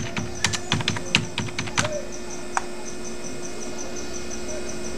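Computer keyboard keystrokes typing a phone number: a quick run of about a dozen key presses over the first two seconds, one more a little later, then only a steady faint hum.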